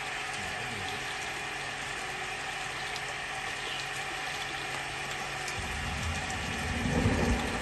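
Water gushing steadily out of a drain pipe outlet onto concrete as the blockage is cleared, with a drain-cleaning line working inside the pipe. About two-thirds of the way through a lower rumble swells in and the sound grows louder.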